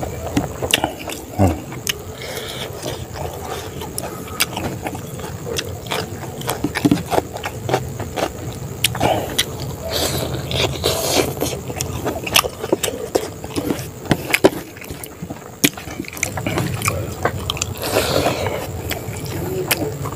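Close-up eating sounds: biting into a chicken leg and chewing, with many sharp wet smacks and clicks, and fingers mixing rice on a plate.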